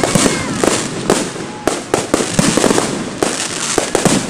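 Fireworks display: aerial shells bursting in rapid, irregular bangs, several a second, over a continuous din of explosions.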